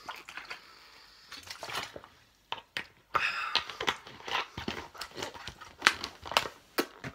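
A plastic water bottle crinkling and crackling as it is handled after drinking, with mouth sounds of chewing and swallowing: an irregular run of short clicks and crackles, densest in the second half.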